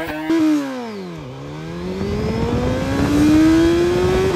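Suzuki GSX-R1000R's inline-four engine, held at the launch-control rev limit with a stuttering buzz. As the clutch is let out, the revs drop sharply within about a second: the engine bogs down. It then climbs steadily as the bike accelerates.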